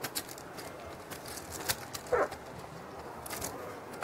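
Casino poker chips clicking against each other in irregular short clicks, as a player handles his chip stacks at the table. About two seconds in, a brief voice-like sound falling in pitch is the loudest moment.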